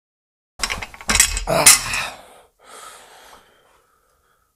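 A heavy perforated metal car part being grabbed and handled: a cluster of knocks and clatter with low thumps from about half a second in, then a fainter scrape or rustle about three seconds in.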